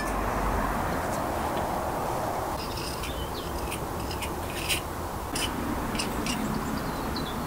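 Bricklayer's steel trowel scraping and tapping on mortar and bricks: a handful of short scrapes and clicks, over a steady low background noise.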